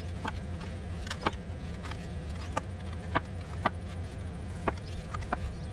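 Scattered light clicks and taps as fingers press adhesive plastic pieces down around an alloy wheel rim to seat them, over a steady low hum.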